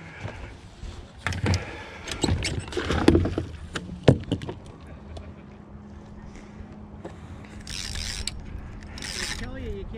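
Knocks and clatter of fishing gear being handled on a bass boat's deck, then the steady hum of the bow-mounted electric trolling motor from about four seconds in. Two short whooshes near the end come as a spinning rod is cast.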